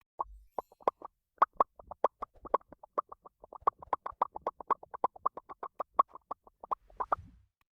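A rapid run of short, pitched plopping pops, about six a second, lasting about seven seconds and stopping abruptly near the end.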